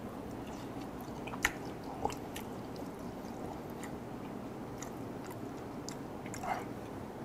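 Close mouth sounds of a man chewing soft raw fish sashimi, picked up by a clip-on mic, with a few short clicks, the loudest about one and a half seconds in.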